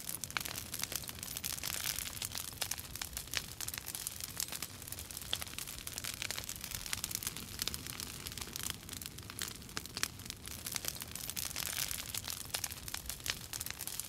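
Wood fire crackling in a fireplace: many small irregular pops and snaps over a soft hiss.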